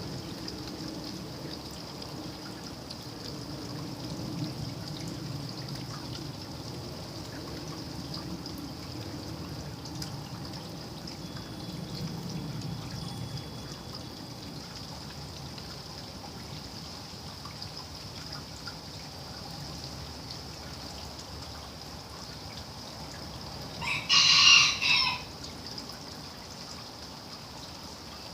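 Steady rain dripping and trickling, with a rooster crowing once near the end, briefly the loudest sound.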